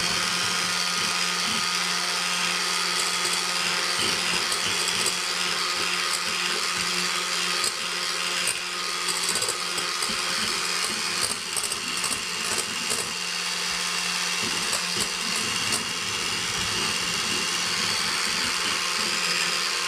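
Electric hand mixer running steadily with a constant motor hum, its beaters whipping egg whites and powdered sugar into meringue in a stainless steel pot.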